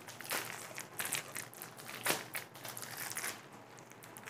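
Clear plastic poly bags holding folded polo T-shirts crinkling as the packets are handled and set down on a table, in several short rustles.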